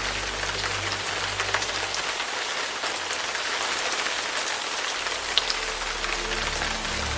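Steady rain falling: a dense, even hiss with individual drops tapping through it.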